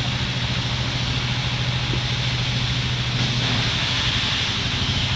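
An engine running steadily, with a constant low hum and an even hiss over it.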